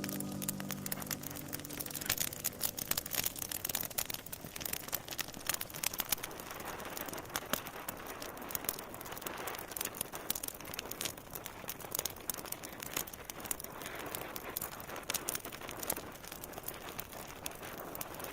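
Fireplace fire crackling, with irregular sharp pops over a steady crackle, as the last of the song's music fades out at the start.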